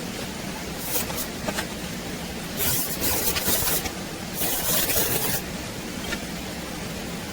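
Workshop tool noise: a steady low hum with several short bursts of hissing, and two longer hisses of about a second each in the middle.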